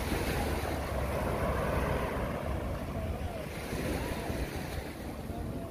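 Small waves washing over a rocky shoreline, a steady surf hiss, with wind buffeting the microphone as a low rumble.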